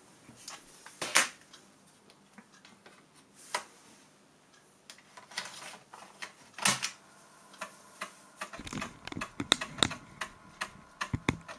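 Scattered plastic clicks and knocks of a 3.5-inch floppy disk being handled, then a quicker run of clicks and clatter near the end as the disk is put into the computer's floppy drive.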